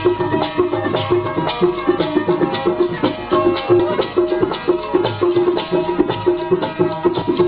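Sindhi Sufi folk music: a sustained melodic line over a quick, steady hand-drum beat.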